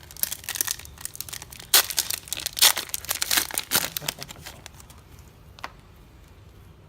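Foil booster pack wrapper being torn open and crinkled: a dense burst of sharp crackling and rustling for about four seconds, then quiet apart from one faint tick.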